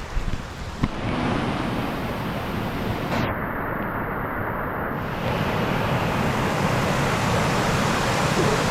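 Waterfall rushing: a steady, dense noise of falling water that gets louder about a second in, with two short knocks near the start.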